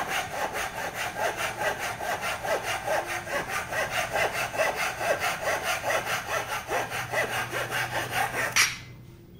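Small Craft 145 fast-cut hand saw rasping through a dry wooden batten with rapid, even strokes. The sawing stops suddenly near the end as the cut goes through.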